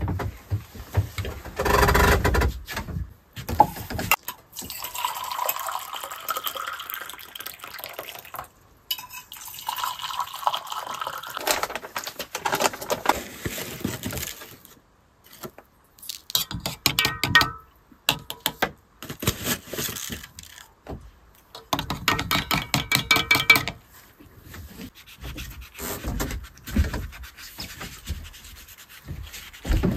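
Handling sounds of cloth being hung up, then tea being made in stainless steel mugs: water poured, and a metal spoon clinking and stirring against the mug, with short ringing tones.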